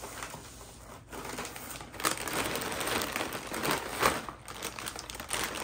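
Thin plastic shopping bag crinkling and rustling as it is handled and lifted out of a cardboard box, starting about a second in, with sharper crackles around two and four seconds in.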